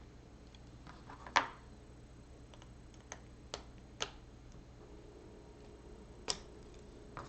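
Plastic LEGO Technic parts clicking and clacking as they are handled, about six separate sharp clicks, the loudest about a second and a half in.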